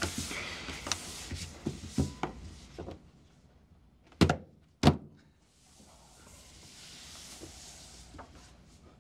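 Cards and hands tapping on a wooden tabletop: a run of soft taps, then two sharp knocks a little over half a second apart, the loudest sounds. A faint hiss swells and fades after them.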